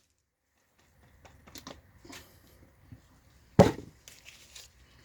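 Handling noise while putting cutting compound on a drill's polishing pad: faint scattered clicks and rustles, with one sharp knock a little past halfway.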